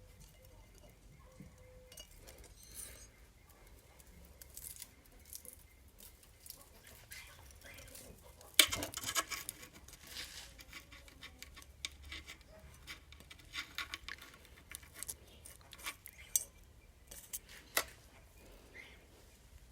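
Metal tools and small engine parts clinking and tapping at irregular intervals during hands-on engine work, with one sharper clank a little over eight seconds in.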